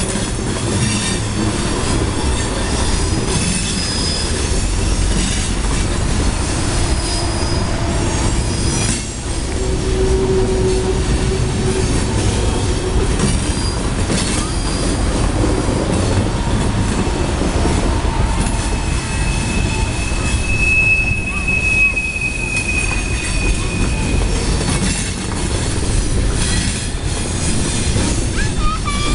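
Freight cars of the CSX Tropicana juice train, boxcars and then refrigerated juice cars, rolling past with a steady rumble of wheels on rail. The wheels squeal now and then on the sharp curve, with one long high squeal held for several seconds about two-thirds of the way through.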